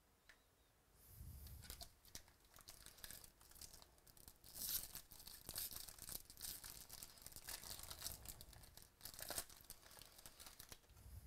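Baseball card pack wrappers being torn open and crinkled: a quiet run of crackling rips and crumpling starting about a second in.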